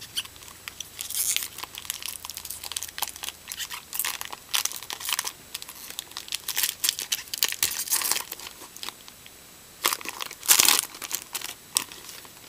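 Foil wrapper of a baseball card pack crinkling and tearing as it is opened by hand, in many short irregular crackles. The loudest crackles come near the end.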